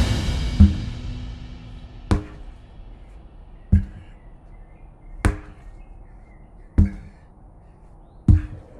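Sledgehammer striking a large tire six times, about one and a half seconds apart, each a sharp thud. Music fades out in the first second or two.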